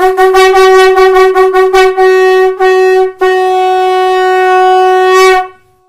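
Shankh (conch shell) blown at one steady pitch: a quick run of short tongued notes, two longer notes, then one long held note that stops near the end.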